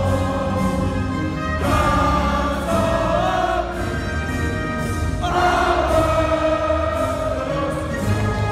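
A national anthem with orchestral backing, sung by a large arena crowd as one big choir, in long held phrases.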